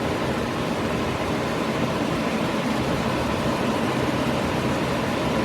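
OLMO 8,000 BTU through-the-wall air conditioner running with its fan on high: a steady rush of blowing air with a low hum. It blows air but no cold air comes out, so it is not cooling.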